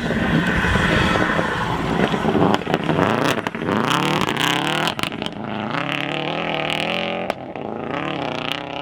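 Rally car engine worked hard, loudest in the first couple of seconds, then revving up and down with its pitch rising and falling repeatedly as the throttle and gears change.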